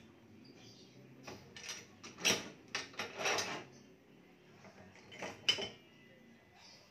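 Short clusters of light clicks and clatter from hands handling string, tools and clamps at a badminton racket stringing machine.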